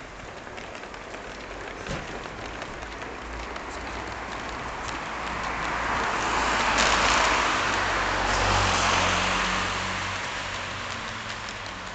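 A road vehicle passing by: its noise swells to a peak a little past the middle and then fades away.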